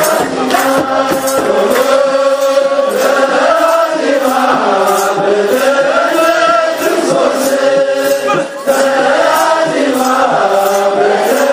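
Many voices chanting an Ethiopian Orthodox wereb hymn together, with kebero drums and hand claps keeping a steady beat.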